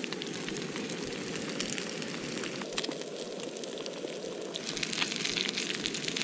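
Trout fillets and onion frying in butter and olive oil in a nonstick pan, a steady sizzle with fine crackling that grows denser near the end.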